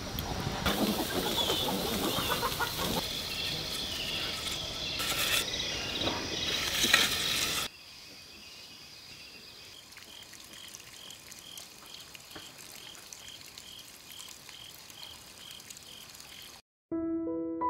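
Dense outdoor noise, which cuts off abruptly about eight seconds in. A high chirp then repeats steadily, about two or three times a second, over a faint background. Piano music starts just before the end.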